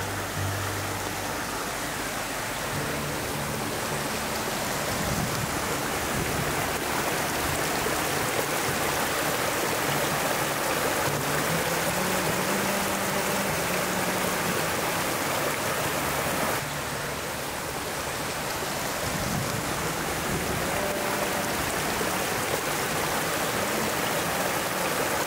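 Mountain river rushing steadily, with a strong current; the sound dips briefly about two-thirds of the way through.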